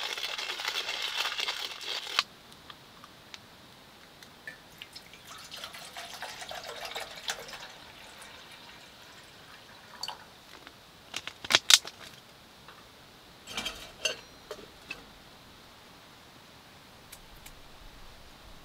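Hand coffee grinder grinding beans for about two seconds, then water poured from a plastic bottle into a metal mug, followed by several sharp metal clinks and knocks of camp cookware being handled, the loudest a little before halfway through.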